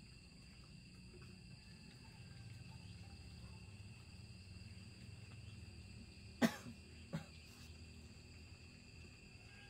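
Two short coughs a moment apart, about two-thirds of the way in, the second fainter, over a steady high-pitched insect buzz.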